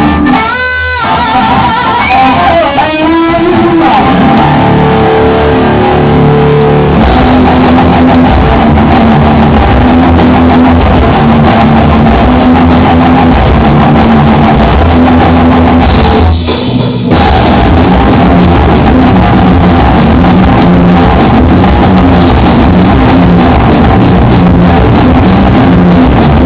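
A rock jam on electric guitar and drums, recorded loud and with poor sound quality. The guitar opens with gliding, bending notes, then settles into a steady repeating riff. The playing drops out briefly about two-thirds of the way in.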